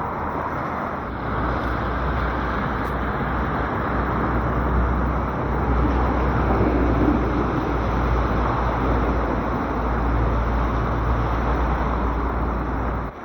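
Sea waves washing steadily onto the shore, an even rushing noise over a strong low rumble, which cuts off abruptly just before the end.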